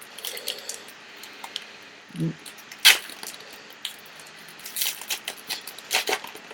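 Crinkling and crackling of a trading-card pack wrapper being handled and torn open, a string of sharp clicks and rustles with a louder snap just before three seconds in.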